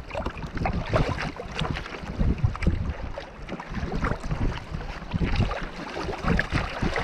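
Wind gusting on the microphone in uneven buffets, over choppy sea water splashing against the kayak.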